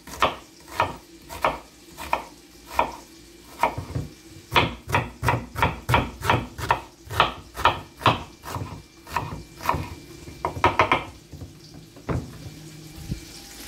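A knife chopping a white onion on a wooden cutting board: a long run of sharp knocks on the board, about two a second at first, quickening to about three a second in the middle. The knocks thin out near the end.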